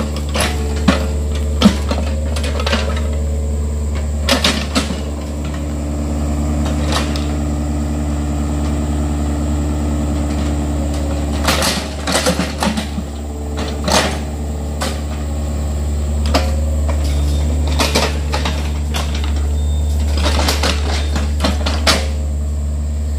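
Yanmar mini excavator's diesel engine running steadily under load, with scattered metallic clanks and knocks from the bucket and arm as it digs soil. The knocks come thickest about twelve seconds in and again near the end.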